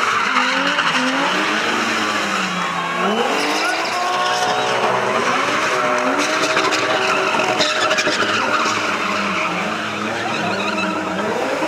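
Two cars spinning, their engines revving up and down at high revs while the tyres screech against the tarmac.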